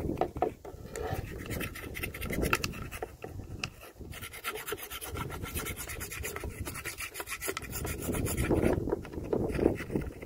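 Hand-tool work on a submersible well pump: rough scraping and rasping, with a run of quick, rapid clicks in the middle.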